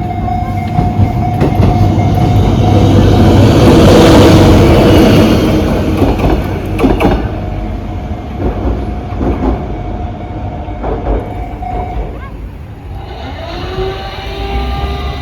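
A lone diesel freight locomotive passes over a level crossing, loudest about four seconds in, with a few sharp wheel clicks as it goes by. The crossing's warning bell rings steadily and stops about twelve seconds in.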